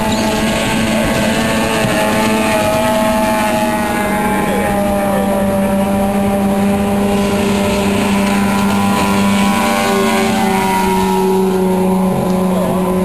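Outboard racing boat engine running hard at speed: a loud, steady engine drone whose pitch shifts only slightly.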